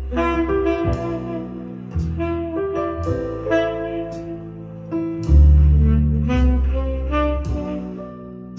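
A jazz ballad recording playing through Rogers LS3/5A bookshelf speakers: saxophone over piano, with a low bass line.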